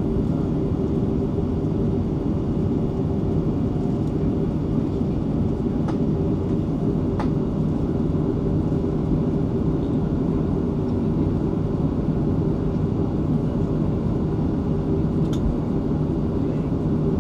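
Cabin noise of a Boeing 737-500 taxiing: its CFM56-3 turbofan engines running at low taxi thrust, a steady rumble with a low hum, heard through the cabin window. A few faint ticks sound over it.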